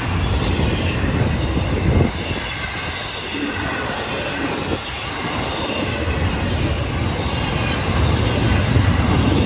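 Florida East Coast Railway intermodal freight cars rolling past close by: a steady rumble of steel wheels on the rails.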